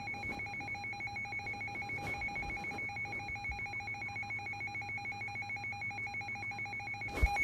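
A steady electronic tone with a fast trill like a telephone ringer, held unbroken between two weather-warning messages. Near the end there is a short thump, and the tone then sounds louder.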